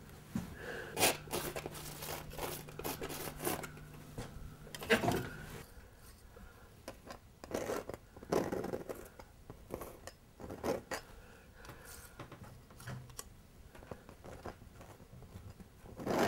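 Palette knife scraping paint onto a canvas in short, irregular strokes, coming thicker in the first half and sparser later.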